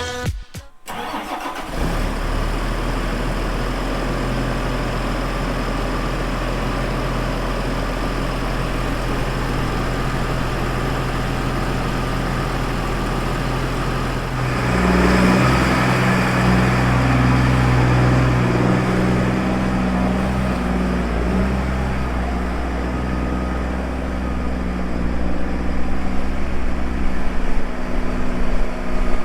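A vehicle engine running steadily. About halfway through it picks up to a louder, higher-pitched run, and it turns rougher and more uneven near the end.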